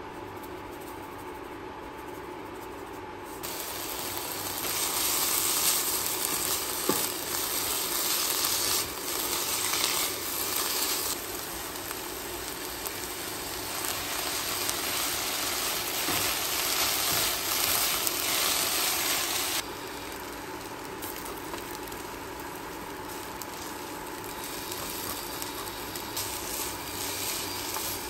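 Stir-fry sizzling in a nonstick pan as noodles, minced meat and basil are tossed with a spatula and wooden spoon, with a few light taps of the utensils. The sizzle is faint at first, swells a few seconds in and drops back to a lower level about two-thirds of the way through.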